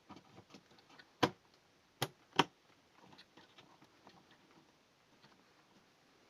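Memory modules being pressed into motherboard DIMM slots: three sharp clicks of the slot latches snapping shut, one about a second in and two close together a second later, over light handling ticks.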